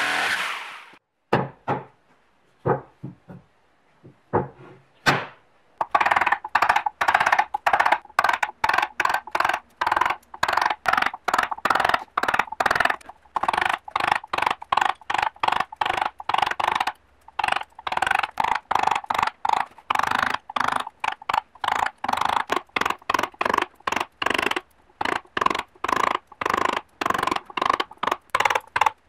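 A rotary carving tool runs for about a second and stops. A few scattered taps follow, then a steady run of sharp knocks at about four a second as a carving gouge is tapped with a mallet through hard ash wood.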